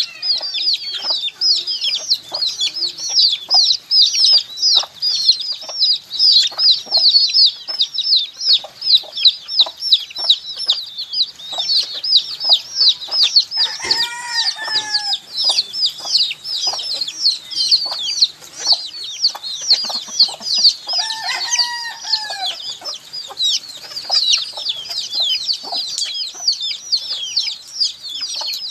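A brood of baby chicks peeping nonstop: many overlapping high-pitched peeps, each dropping quickly in pitch. Twice a deeper, longer arched call cuts across the peeping.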